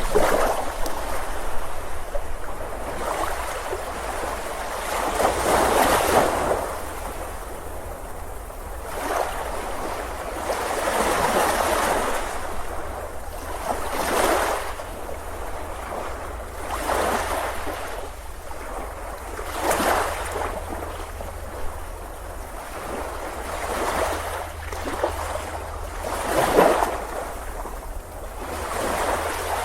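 Sea waves breaking and washing up on a beach, one surge after another every few seconds, each swelling and then fading.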